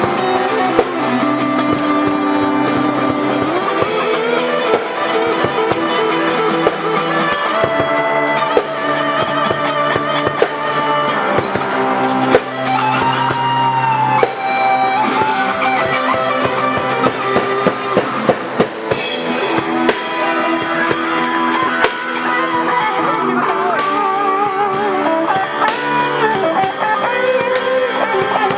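Instrumental band music: guitars playing over a drum kit, with a lead line of held notes that waver and bend.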